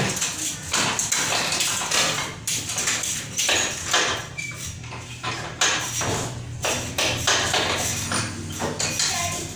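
Forearm crutches and a bare foot thudding and tapping on a tiled floor in a steady rhythm, about two knocks a second.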